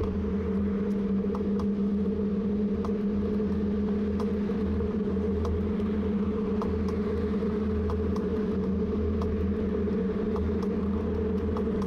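A steady low hum and rumble at a few fixed pitches, with faint scattered ticks.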